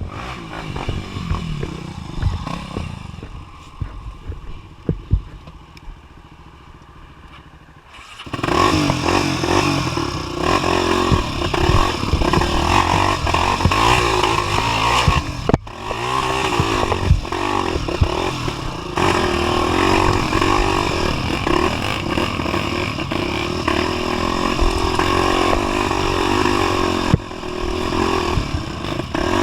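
250 cc single-cylinder trail motorcycle engine running low and quiet with a few knocks. About eight seconds in it opens up into steady loud riding, with clattering from rough ground.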